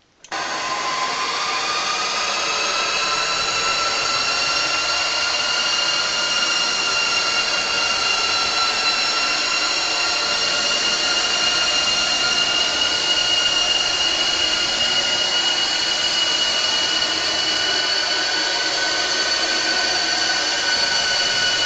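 Horror sound effect: a loud, sustained shrill screeching drone that starts abruptly, with several high tones creeping slowly upward over a dense rushing noise.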